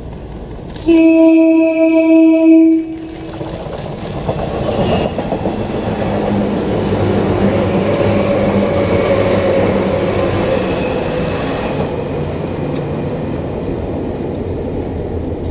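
Series 583 six-car electric train sounds its horn, one pitched blast of about two seconds. It then runs past, its wheel and rail noise swelling as the cars go by and fading away near the end.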